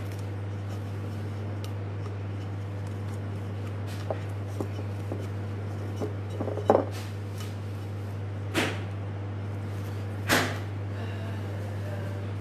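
Handling noises at a worktable: a few light knocks and clicks, then two short rustling swishes, over a steady low electrical hum.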